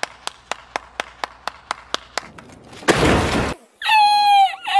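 One person's slow hand-clapping, about four claps a second, stopping a little over two seconds in. Then comes a short, loud, noisy burst, and after it a high, held voice-like tone that falls slightly at its end.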